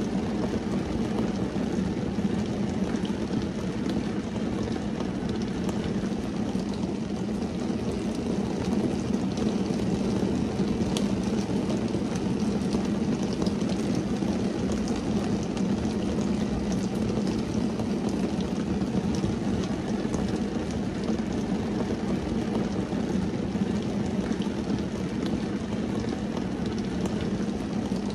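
Steady rain falling on a car's windshield and roof, heard from inside the car: an even, dull rush with scattered sharper taps of individual drops.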